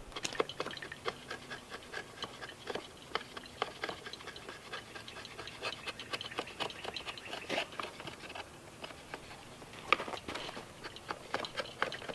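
Knife whittling a small wooden dish by hand: irregular short cuts and scrapes of the blade in the wood, a few a second.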